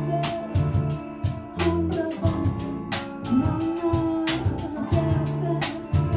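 A band playing on instruments built from garbage: a plucked, guitar-like part over bass notes and a steady drum beat.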